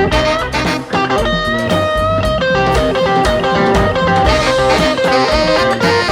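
Live instrumental rhythm-and-blues band playing, with the electric guitar to the fore over drums and bass guitar.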